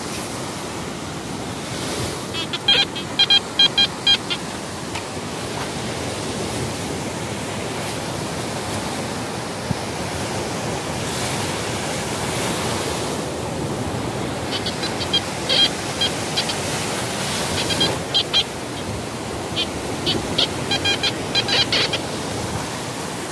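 Steady surf and wind hiss, broken by clusters of rapid high beeps from a metal detector: once about three seconds in, and again repeatedly through the later part. The beeps are the detector signalling metal in the dug hole.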